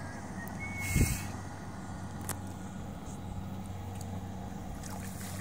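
Kubota tractor's diesel engine running steadily at idle, with one short thump about a second in.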